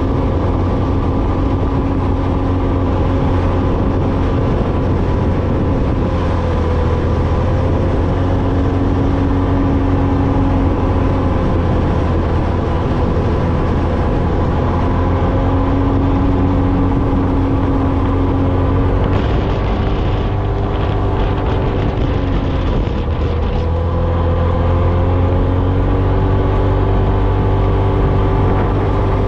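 Off-road vehicle engine running steadily while driving across sand dunes, over a constant low rumble. Its pitch dips and climbs back as the throttle changes, a few seconds in and again about two-thirds of the way through.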